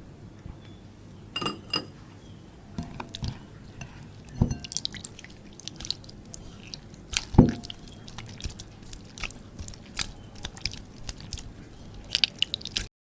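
Detergent-activated homemade slime being worked by hand: irregular sticky squelches, crackles and small pops. There is a ringing glass clink about a second and a half in.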